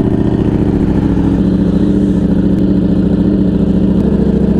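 Ducati Streetfighter V4's V4 engine idling steadily, still cold just after being started.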